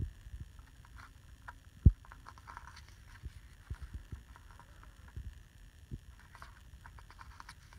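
Pages of a DVD photo booklet being turned and handled, with light paper rustles and soft taps and one sharp thump about two seconds in.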